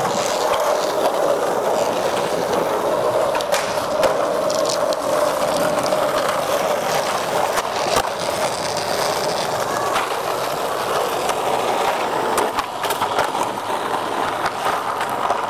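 Skateboard wheels rolling over rough concrete, a steady grinding rumble, broken by a few sharp clacks of the board.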